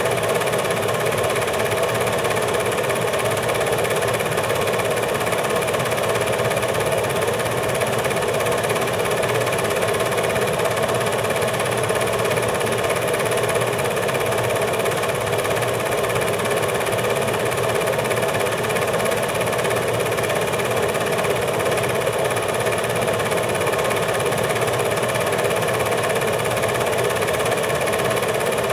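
Film projector running steadily: an even motor and film-transport whir with no changes, the sound of an 8mm home movie being played back.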